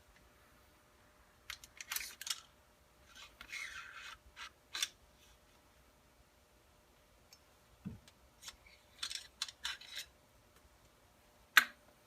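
An AR-style 300 Blackout rifle being handled, with its action worked: groups of metallic clicks and short sliding scrapes, and one sharp, louder click near the end.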